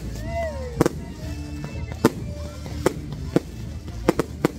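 Fireworks going off: a string of sharp bangs at irregular intervals, about seven, some coming in quick pairs near the end.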